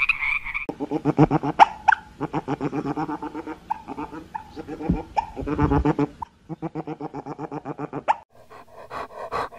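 A frog's croaking stops less than a second in. Then an otter chatters in quick runs of pulsed calls, about ten a second, in several bursts of a second or two each, fainter near the end.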